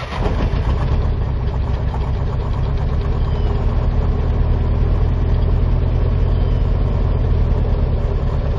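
Chevy S10 pickup's 2.5-litre four-cylinder engine, heard from inside the cab, settling into a steady idle right after starting. It runs rough with a knock that the owner takes for rod knock.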